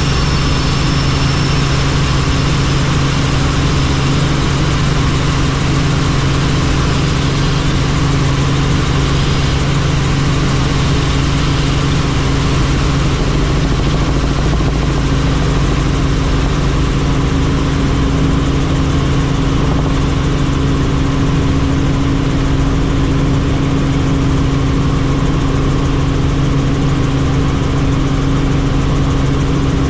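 Helicopter in flight, a constant loud mechanical drone with two steady low hums and no change in level.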